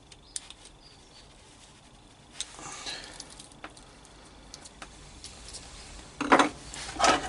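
Light clicks and small rattles of a plug's parts and a screwdriver being handled while a 12 V plug is wired. There are two louder bursts of handling noise near the end.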